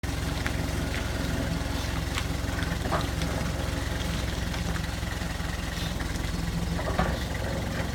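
An engine idling steadily, with a few sharp clinks and knocks over it; the loudest knock comes about seven seconds in.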